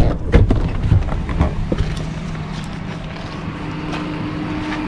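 A few sharp knocks and clicks as a person climbs out of a pickup truck through its door, followed by a steady low hum.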